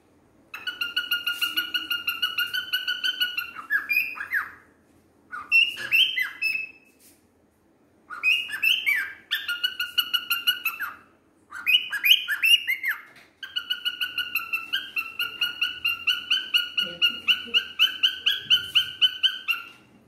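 Male cockatiel singing: phrases of rapid, repeated whistled notes, separated by short pauses. The last phrase is the longest, a steady string of notes lasting several seconds.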